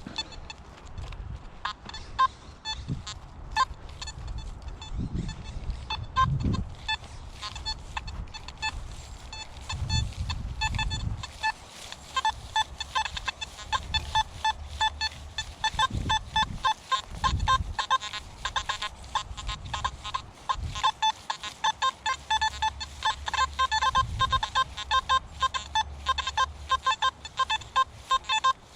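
Nokta Simplex+ metal detector sounding short, irregular beeps as the coil sweeps a trash-filled site, scattered at first and coming thick and fast from about halfway, with a few low rumbling thumps in the first half.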